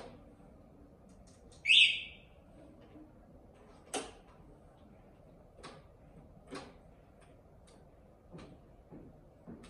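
Handlebar switches on an electric chopper scooter being pressed, giving a string of short, irregular clicks, with one short high electronic beep about two seconds in, the loudest sound.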